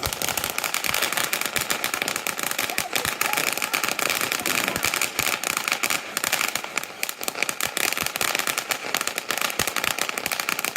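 Fireworks crackling and popping in a rapid, dense string of small bangs that keeps going without a break, with a hiss underneath.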